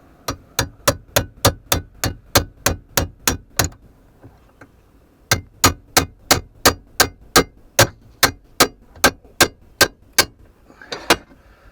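Metal struck hard and steadily with a hammer, about three ringing blows a second: a run of about a dozen, a short pause, then about fourteen more.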